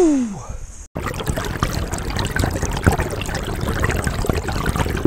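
A man's short exclamation falling in pitch. About a second in, it breaks off abruptly into close-up water splashing and trickling, a dense crackle of many small clicks.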